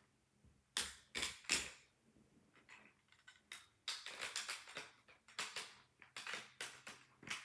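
Plastic construction-block pieces of a toy rifle clicking and clacking as they are handled and pulled apart. There are a few sharp clacks about a second in, then a quick run of clicks from about four seconds in.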